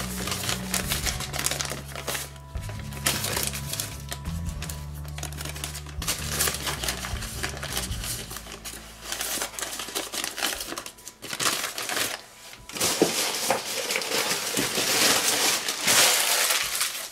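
Filo pastry sheets crinkling and rustling as torn pieces are handled and laid in layers, louder near the end. Soft background music plays under it and stops about eight seconds in.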